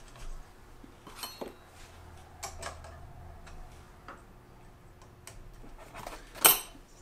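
Scattered light metallic clicks and ticks of a small wrench and the filament tube's push-in fitting being worked on a metal dual gear 3D-printer extruder, with one sharper, louder click near the end.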